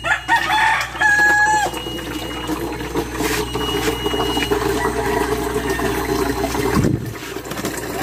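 A rooster crows once, lasting about a second and a half near the start, over the steady sound of water running into a plastic water jug.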